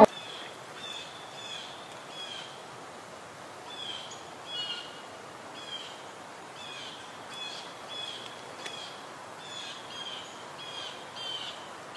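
Small bird giving short, high, slightly falling chirps, about one to two a second at an uneven pace, over a steady outdoor hiss.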